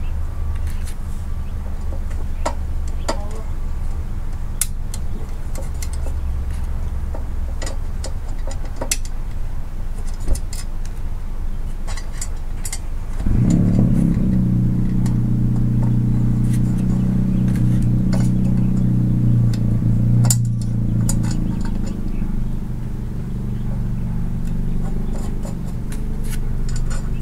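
Small metal clicks and ticks of screws and hardware being handled and threaded by hand into a shifter box cover. About halfway through, a vehicle engine close by comes in suddenly with a steady low hum, loud for several seconds and then fainter.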